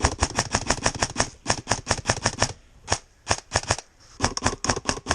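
Airsoft gun firing a rapid string of single shots, about seven a second, for roughly two and a half seconds, then a single shot and two short bursts of four or five. The gun is being test-fired after a switch to mid-cap magazines because of feeding trouble.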